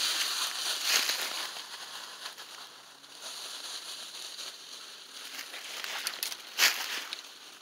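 Dry fallen leaves crackling and crunching, loudest at first and then quieter, with one sharp, louder crunch about a second before the end.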